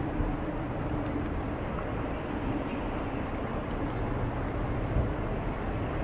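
Steady outdoor ambience with a continuous low rumble and no distinct events.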